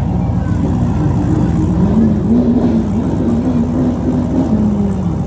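Blown V8 of a 1960s Dodge Charger restomod running at idle, rising slightly in revs about two seconds in and easing back near the end.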